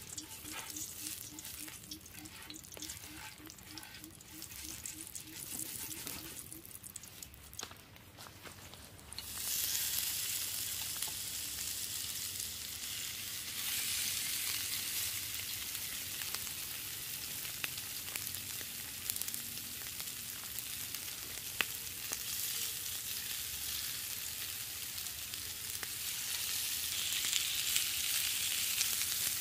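Oil crackling faintly on a hot grill plate as it is brushed on with a lemongrass stalk, then about nine seconds in a loud, steady sizzle starts as skewers of pork-wrapped mushroom are laid on the plate. The sizzle grows a little louder near the end.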